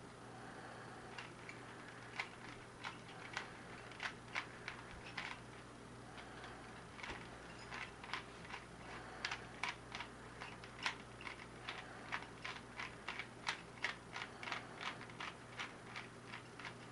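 Rubik's Cube layers being twisted by hand: a string of faint, irregular plastic clicks, coming faster in the second half.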